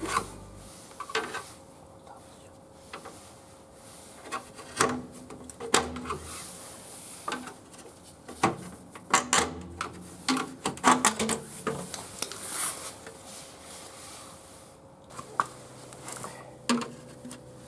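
Irregular metallic clinks, knocks and rubbing of hand tools and wheel parts being handled during a tyre change, some clinks ringing briefly.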